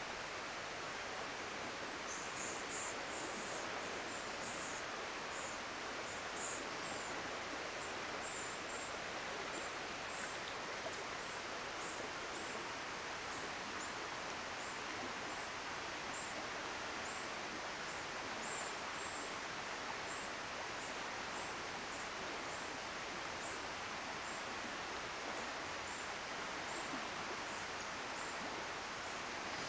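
Steady rush of flowing river water. Short, high-pitched chirps repeat about once a second from about two seconds in, clustered at first and fainter toward the end.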